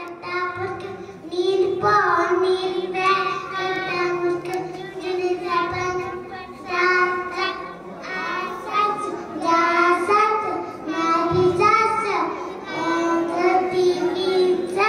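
Two young girls singing together into microphones, in phrases with short breaks, over a steady held drone note.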